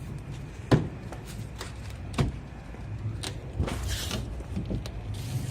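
Scattered knocks and clunks from an old solar water-heater collector panel being handled and lowered by rope, the sharpest under a second in and others about every second after, with a brief rustle near the end, over a steady low hum.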